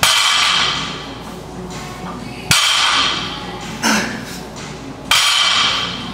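A loaded barbell with iron plates set down on the floor between deadlift reps: three loud clanks about two and a half seconds apart, each ringing briefly, with lighter knocks in between. Background music with vocals plays underneath.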